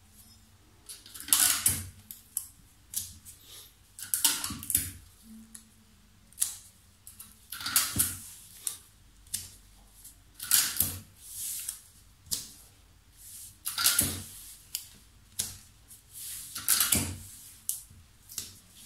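Paper pattern pieces rustling and sliding across a table as hands move and spread them apart, in a string of irregular short rustles.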